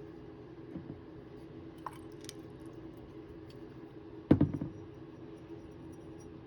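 Small taps and clicks from art supplies being handled on a tabletop during painting, with one louder knock about four seconds in, over a low steady hum.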